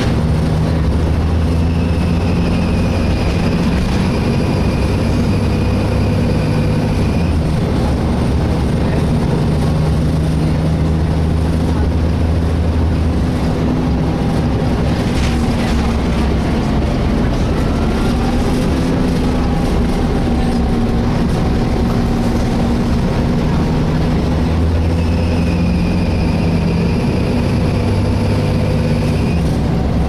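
Inside a moving Volvo B7LA articulated bus: steady engine and road noise, with a high-pitched screech at the start and again for a few seconds near the end.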